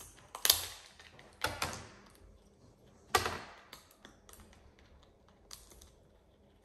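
Blue-and-gold macaw cracking and crunching a walnut shell with its beak: a few sharp cracks, the loudest about half a second in, around a second and a half, and just after three seconds, with smaller crunches after.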